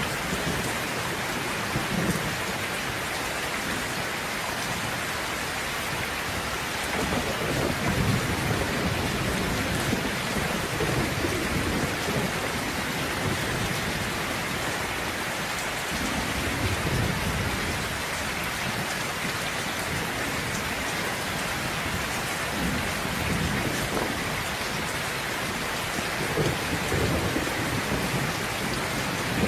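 Steady rain pouring, with low rolls of thunder swelling and fading several times.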